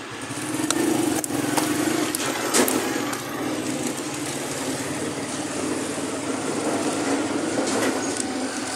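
A small engine running steadily close by, with a few sharp clicks and scrapes as a plastic toy excavator is worked in dirt and grit.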